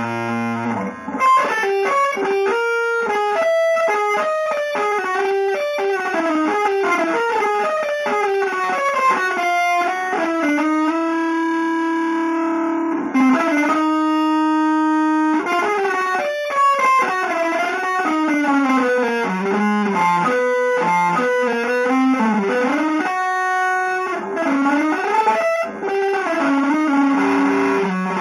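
Electric guitar playing fast single-note runs, with two long held notes about halfway through.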